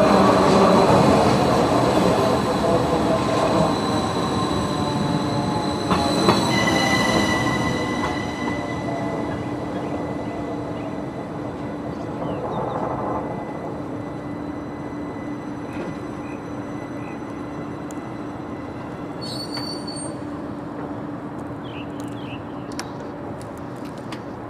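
Rhaetian Railway train on the Bernina line running away from the listener, wheels squealing in steady high tones over the rumble of the cars, fading out gradually.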